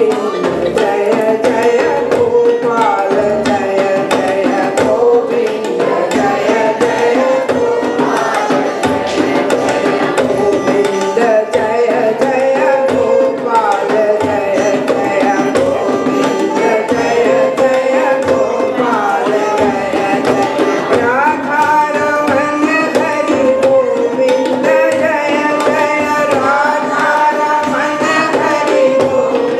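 A group of women singing a Hindu devotional bhajan to the names of Krishna, in a steady melody, accompanied by tabla and a second hand drum.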